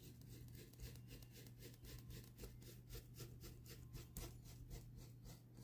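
Faint paintbrush strokes dragging down across the painting surface, a rapid series of soft scratchy strokes, over a low steady hum.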